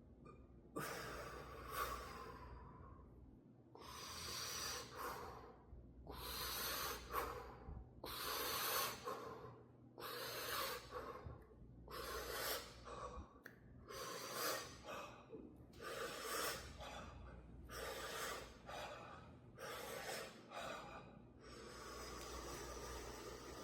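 A person breathing hard and noisily in and out as a throat-clearing exercise, about a dozen forceful breaths at roughly one every two seconds.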